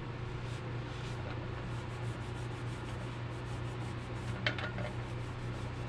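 Cloth wiping a plastic leaf-blower fuel tank in quick repeated rubbing strokes, about four a second, over a steady low hum. A short squeak comes about four and a half seconds in.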